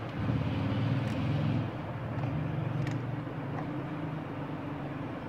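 Steady low droning hum of a running motor or engine, with faint light ticks about one and three seconds in.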